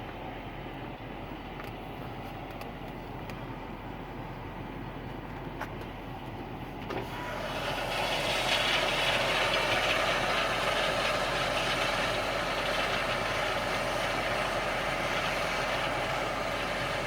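Tractor engine running steadily, heard from the cab; about seven seconds in it grows louder and takes on a broad, steady hiss.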